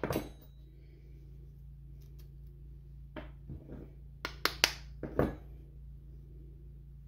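A handful of short, sharp clicks and taps from handling a small bath bomb mold and a metal spatula over a plastic mixing bowl, bunched between about three and five seconds in, over a steady low hum.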